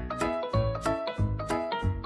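Background music: an upbeat tune with a bouncy bass line and a steady beat.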